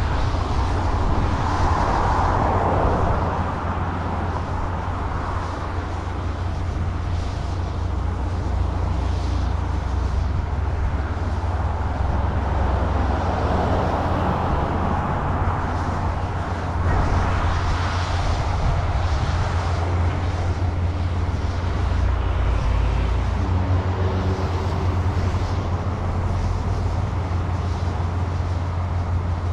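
Harvest machinery running steadily in a corn field, swelling and easing a few times, with wind rumbling on the microphone.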